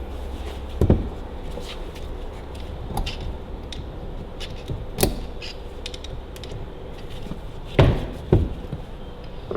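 Sharp knocks of a new PTO shaft oil seal being tapped down into its housing on a Ferguson TEA20 tractor: five irregularly spaced blows, one about a second in and two close together near the end, over a steady low hum.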